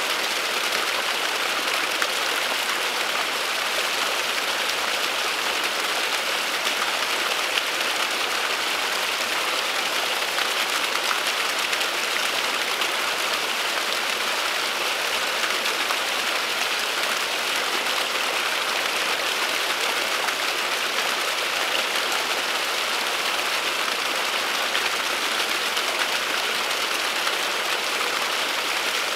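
A small waterfall, a thin stream of water splashing steadily down a mossy bank, making an even, unchanging splashing sound.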